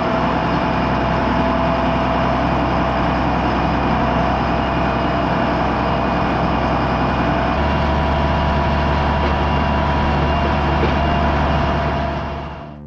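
A John Deere 7810 tractor's diesel engine running steadily while pulling a forage chopper. Its low note shifts and grows stronger about two-thirds of the way through, and the sound fades out near the end.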